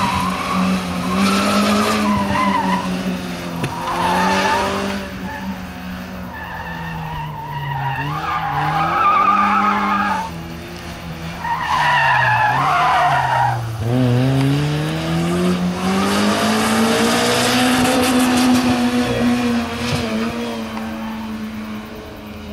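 Toyota Corolla FX-GT's 4A-GE twin-cam four-cylinder engine revving hard, its pitch climbing and dropping again and again as the driver accelerates and lifts between corners. Tyres squeal in several bursts as the car slides through the turns on the autocross course.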